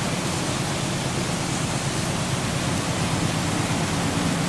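Steady hum of a standing train's diesel engines under a broad hiss, growing a little louder near the end.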